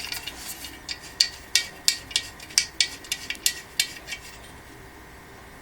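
Small, sharp metal clicks and clinks, irregular at about two or three a second, as a threaded rubber foot is screwed into the bottom of a steel printer-stand leg; they stop about four seconds in.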